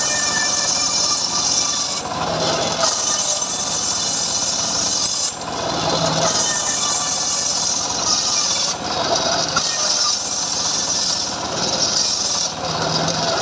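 Homemade bench circular saw ripping lamtoro (leucaena) planks: a steady rasping cut through the wood. It is broken every few seconds by short spells where the cutting noise drops and the saw's low running hum comes through.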